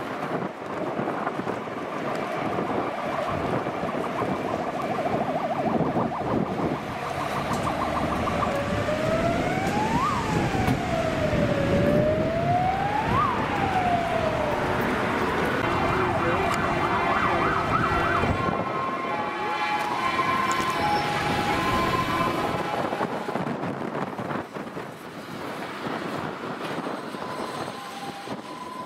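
Fire engines passing on an emergency run: engine and tyre noise, an electronic siren wailing up and down twice about a third of the way in, then blasts of multi-tone air horns about halfway through, fading toward the end.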